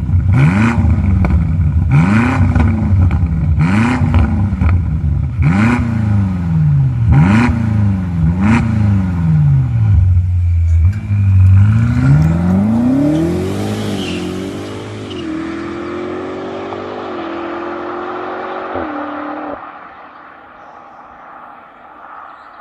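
BMW M5 F90's twin-turbo V8 revved hard about seven times in a row, each blip rising and falling in about a second and a half. It then pulls away, the engine note climbing with short dips at the gear changes as it fades, and it cuts off suddenly about 19 seconds in.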